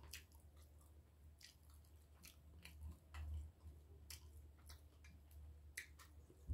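Faint chewing of a mouthful of breakfast food, with scattered soft clicks.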